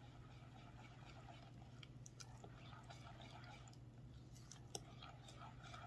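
Faint wet squishing and small ticks of a silicone spatula stirring a thin banana-and-milk batter in a glass bowl, over a low steady hum.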